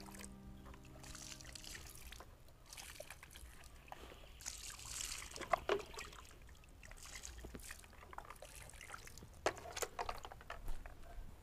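Hands scraping and scooping loose sandy soil and gravel, grains trickling and rattling in uneven bursts with a few sharper clicks of small stones.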